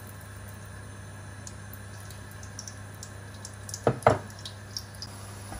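Cooking oil poured into an empty aluminium karahi, a soft trickle over a steady low hum, with faint scattered ticks. Two sharp knocks close together about four seconds in are the loudest sounds.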